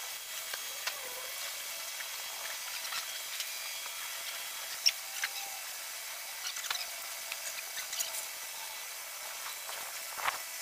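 Scattered light clicks and clinks of hands working on a bare 3.6L V6 engine's fittings and wiring, over a steady hiss, with one sharper click about five seconds in.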